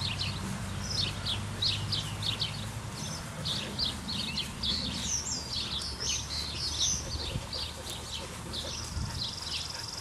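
Small birds chirping and twittering: many short, quick, mostly falling notes in close succession, over a steady low background rumble.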